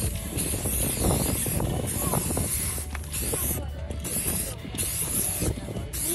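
Aerosol spray-paint cans hissing in repeated bursts about a second long, with short breaks between them.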